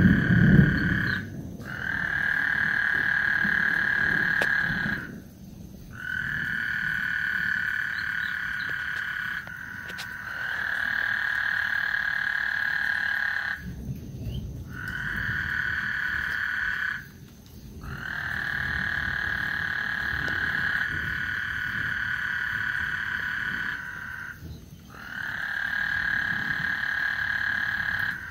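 Frogs calling: one long, even trill after another, each lasting two to four seconds with short breaks between, with a loud low rumble at the very start.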